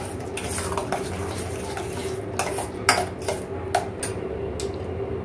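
Yogurt raita being mixed in a steel saucepan, first by hand and then with a metal spoon that clinks against the side of the pan several times in the second half. A steady low hum runs underneath.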